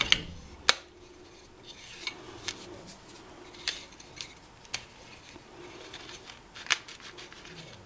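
Plastic egg-tray moulds clicking and tapping against each other several times at irregular intervals, over a faint scraping and rubbing as crumbly bath bomb mixture is pressed into them.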